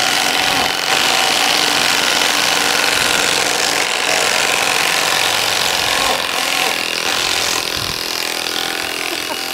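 Two 12-volt cordless impact drivers, a brushless DeWalt and a brushed Bosch, running together in reverse into wood, making a steady, loud mechanical rattle without a break.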